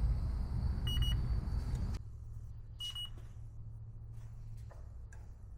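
Air-conditioning equipment running with a low rumble that drops to a quieter hum about two seconds in. Two short electronic beeps sound, one about a second in and one about three seconds in.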